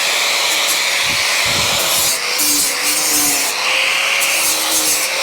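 Handheld power grinder dressing down fresh weld seams on a motorcycle fuel tank: the motor runs steadily while the abrasive rubs across the metal, with brief changes in load.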